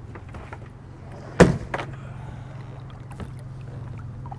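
A sharp knock on a plastic kayak's hull about one and a half seconds in, a smaller knock just after, and a few faint taps, over a low steady hum.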